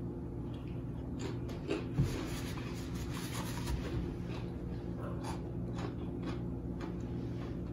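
Close-up eating sounds: crunchy bites and chewing of a sauce-dipped cucumber slice, heard as scattered short crunches, thickest from about two seconds in, over a steady low hum.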